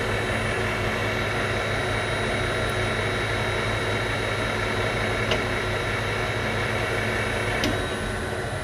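Harrison Alpha 460 CNC lathe running with its chuck spinning: a steady hum and a steady high whine from the spindle drive and headstock, with two sharp ticks about five and seven and a half seconds in.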